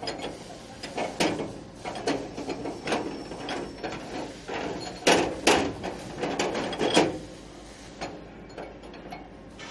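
Steel mounting hardware being handled and fitted by hand: a bottom plate, washers and nuts going onto carriage bolts, giving irregular metallic clinks and knocks, loudest about five and seven seconds in.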